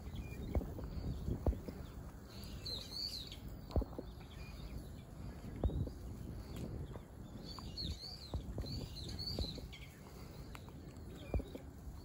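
Birds chirping: short, high, arching calls, a few about two and a half seconds in and more around two-thirds of the way through, over a low rumble with scattered knocks.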